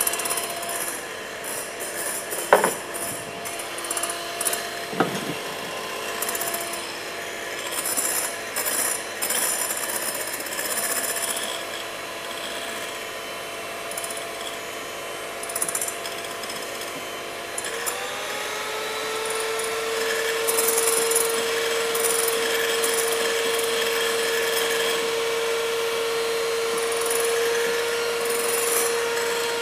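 Electric hand mixer running, whipping egg whites into meringue. About 18 seconds in its motor glides up in pitch and then holds a steady, higher whine; a couple of sharp knocks sound in the first few seconds.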